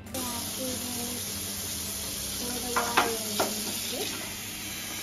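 Kitchen tap running steadily, water pouring into a rubber glove and splashing into a stainless steel sink. A couple of short vocal sounds come through about three seconds in.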